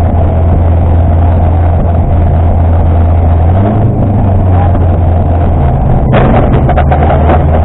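Rally car engine running hard, heard inside the stripped cabin as a loud steady drone whose note shifts briefly about halfway through. From about six seconds in, a rapid clatter of gravel hitting the underside of the car joins it.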